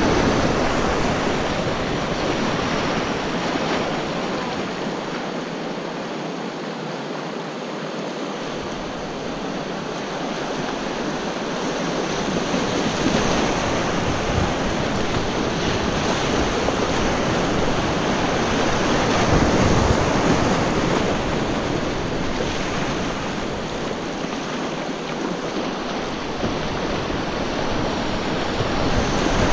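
Whitewater rapids rushing around a kayak, heard from the boat as a loud, steady rush of churning water. A low rumble under it drops away twice for a few seconds.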